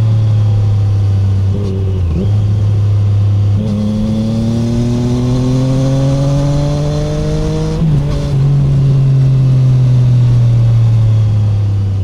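2017 Triumph Street Triple 765R's inline three-cylinder engine through an SC Project SC1-R titanium exhaust with the dB killer removed, heard onboard while riding. It runs steadily with a short break about two seconds in, then pulls up smoothly in pitch under acceleration until a quick upshift about eight seconds in, and runs on steadily after.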